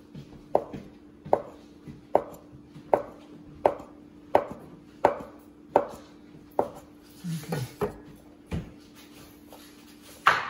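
Chinese cleaver chopping folded noodle dough on a wooden cutting board, one even stroke about every three quarters of a second. The chopping stops about two thirds of the way in, followed by a few scattered knocks and one louder knock at the very end.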